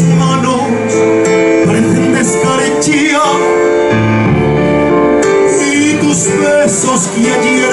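A man singing live into a microphone, holding long notes, with electronic keyboard accompaniment.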